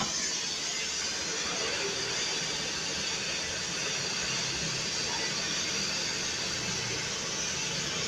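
Flour-coated chicken frying in hot oil: a steady sizzle.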